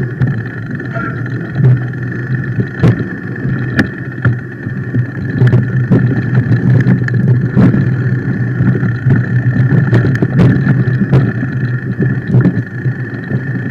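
Fat bike rolling fast down a rough dirt trail: continuous tyre and frame rumble with wind, broken by frequent sharp knocks and rattles as the bike hits roots and bumps.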